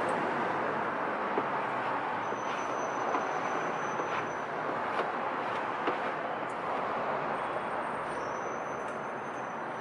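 Steady rasping hiss of wet sandpaper being worked over a painted fender's clear coat, cutting down orange peel, with a few faint clicks.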